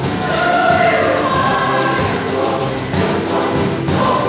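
Choir singing a choral arrangement, several voice parts sounding together.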